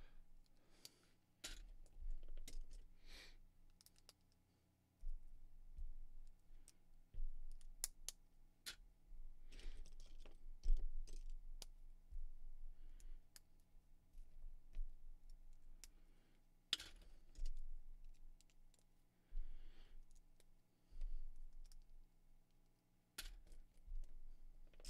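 Small plastic Lego pieces, including 1x1 round plates, clicking and clattering as they are handled and snapped together by hand: irregular sharp clicks with occasional soft knocks, over a faint steady electrical hum.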